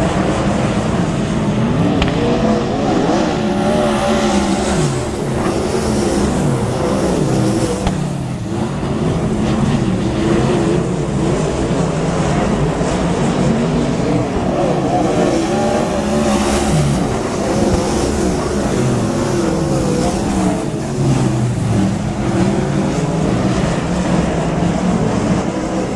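Several 360 sprint cars racing together, their 360-cubic-inch V8 engines overlapping and rising and falling in pitch as the cars accelerate and back off around the track.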